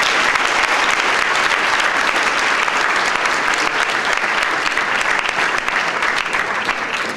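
Audience applauding, a dense steady clapping that begins to ease off near the end.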